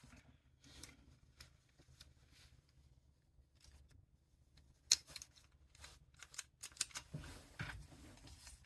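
Scattered light clicks and taps of airsoft pistol parts being handled and fitted together by hand, the sharpest about five seconds in.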